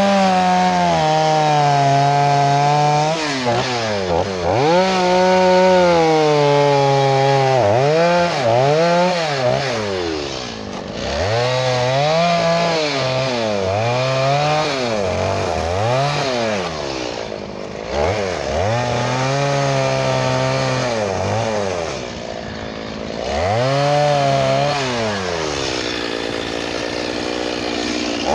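Two-stroke gas chainsaw carving into a log, its engine pitch sagging under load and climbing again over and over as each cut is made and eased off. Near the end it settles back to a steady idle.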